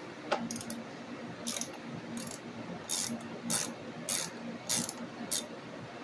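Hand socket ratchet clicking as it backs out the mounting bolt of a voltage regulator rectifier: about eight short ratcheting strokes, evenly spaced roughly two-thirds of a second apart.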